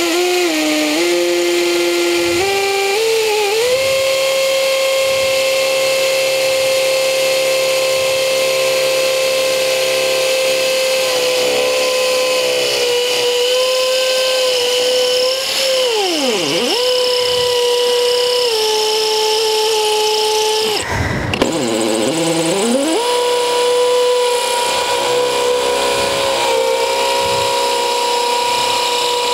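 Makita cordless hammer drill running under load. Its motor whine climbs in pitch over the first few seconds, then holds steady. Past the middle the pitch sags sharply and recovers as the bit bogs down; a little later the drill stops for a moment, restarts and sags once more before settling.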